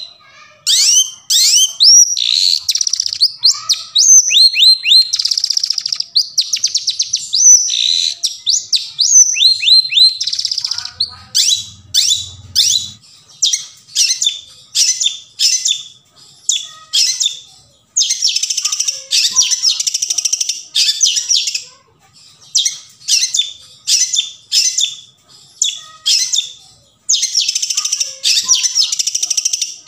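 Long-tailed shrike (cendet) singing loudly in a rapid, chattering run of quick downward-sweeping whistles. Two longer stretches of harsh, rasping calls come past the middle and near the end.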